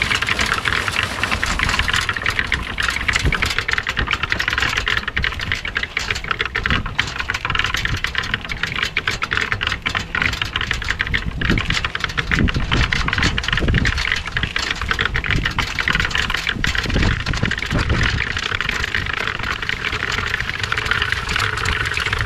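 Portable belt-driven concrete mixer running, with concrete mix and gravel tumbling in its steel drum as a dense, steady rattling clatter over the low drone of its motor.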